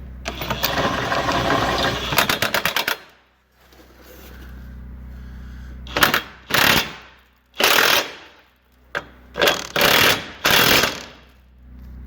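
Impact gun tightening trailer-hitch mounting bolts: it runs for about two seconds and ends in a quick rattle of hammering blows. After a pause come several short trigger bursts of hammering as the bolts snug down.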